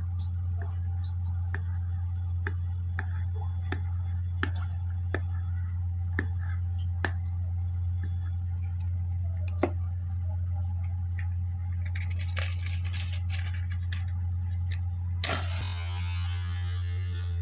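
A steady low hum, with scattered soft clicks as liquid is squeezed out of a small plastic bottle. About fifteen seconds in, a match is struck and flares with a sudden hiss that fades over a second or two.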